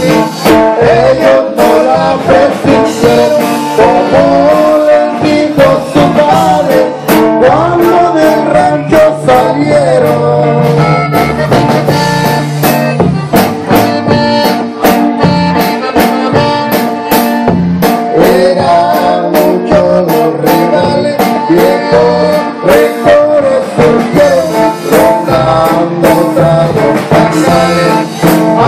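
Norteño music with an accordion carrying the melody over a steady, driving beat.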